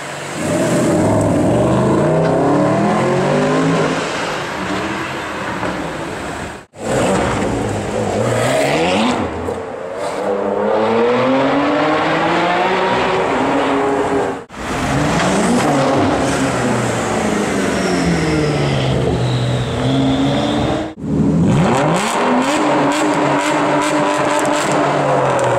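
Supercar engines revving and accelerating hard in a run of short clips, the engine pitch climbing and dropping through gear changes, with abrupt cuts between clips about a quarter, a half and three quarters of the way through.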